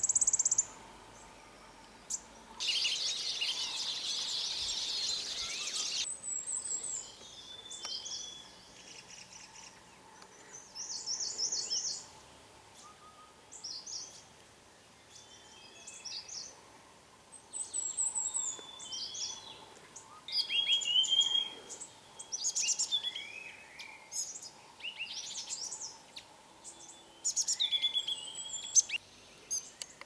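Songbirds calling and singing: a run of varied high chirps, short trills and whistled phrases, with a dense high buzz lasting about three seconds early on.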